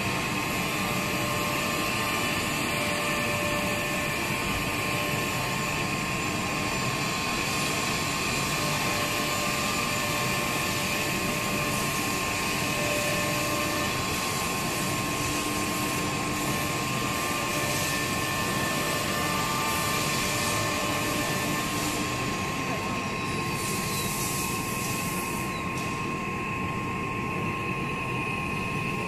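Three-spindle pneumatic CNC router cutting a wooden board: a steady high spindle whine over the noise of the bit working the wood. A whine falls in pitch a little over 20 seconds in.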